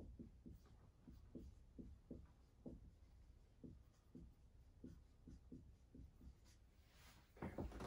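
Faint dry-erase marker strokes on a whiteboard as words are written, short irregular strokes about two a second, with a louder knock near the end.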